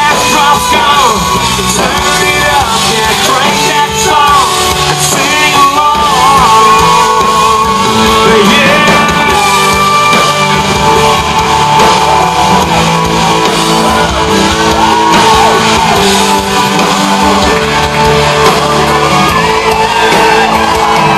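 Live country-rock band playing loudly in a large hall, a lead singer singing into a microphone over guitars, with shouts from the crowd.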